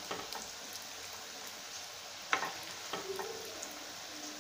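Sweet potato bondas deep-frying in hot oil: a steady sizzle, with a sharp knock a little past halfway and a fainter one soon after.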